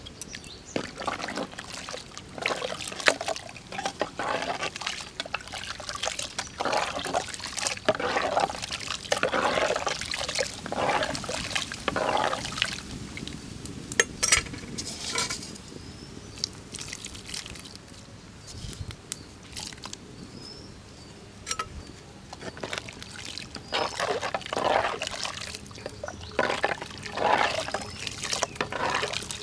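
Steel ladle stirring sambar in a metal pot: the thick liquid sloshes and the ladle now and then clicks against the pot's side. The stirring comes in bursts, with a quieter stretch in the middle.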